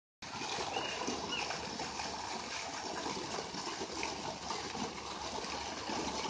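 Fountain's single vertical water jet falling back into its basin: steady splashing rush of water.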